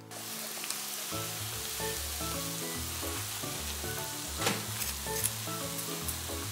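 Freshly cooked karaage (Japanese fried chicken) pieces sizzling hot on a parchment-lined tray: a steady crackling hiss, with a few crisp taps about two-thirds of the way through as chopsticks touch the crispy pieces.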